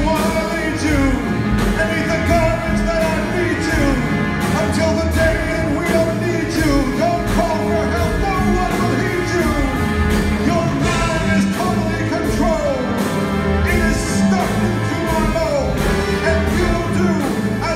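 Live rock band playing: electric guitar, bass and drums with keyboards, full and continuous, with many sliding notes and some singing over it.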